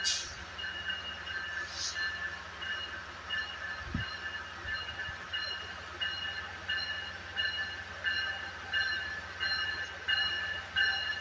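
Bell on a Metrolink cab car ringing steadily, about one and a half strokes a second, as the train pulls into the station. There are short hisses near the start and a single low thump about four seconds in.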